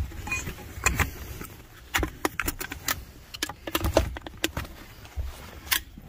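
Irregular metallic clinks and knocks of small scrap-metal pieces being picked up and handled, a couple of sharp hits every second.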